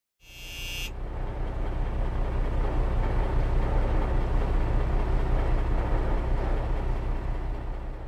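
A steady low rumble that builds up over the first second and holds, with a brief high ringing tone at its very start.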